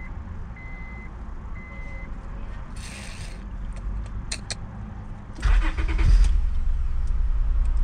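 A chime beeps about once a second, then the 2003 Acura TL's 3.2-litre V6 is cranked by the starter about five and a half seconds in. It catches and settles into a steady idle. This engine is logging a cylinder 6 misfire.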